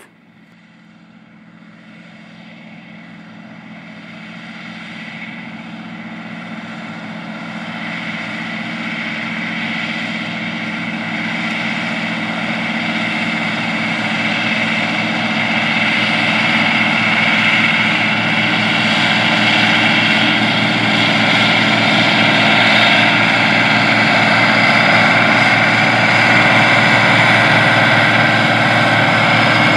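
Allis-Chalmers 4W-220 articulated four-wheel-drive tractor's turbocharged six-cylinder diesel running steadily under load, pulling a 16-row corn planter. It grows louder over the first half as the tractor comes closer, then holds steady.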